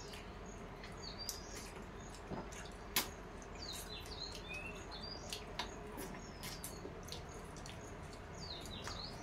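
Faint sounds of eating by hand from steel plates: scattered clicks and smacks of chewing and of fingers working rice on the plates, over a steady low hum, with short high chirps every second or so.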